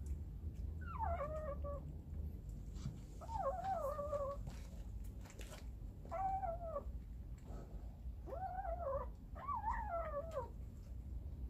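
A cat meowing five times in short, falling calls, the last two close together.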